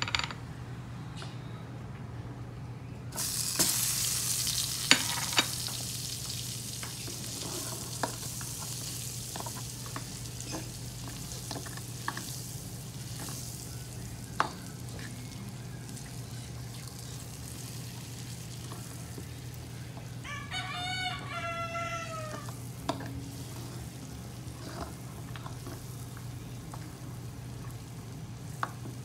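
Butter sizzling as it melts in a hot stainless steel wok, starting suddenly about three seconds in, with a spatula clicking and scraping against the pan. A rooster crows once, about two-thirds of the way through, its call falling in pitch at the end.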